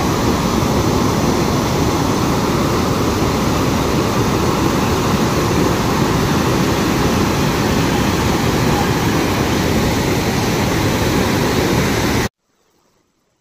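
Water pouring over a low concrete weir and churning over rocks below: a loud, steady rushing that cuts off abruptly near the end.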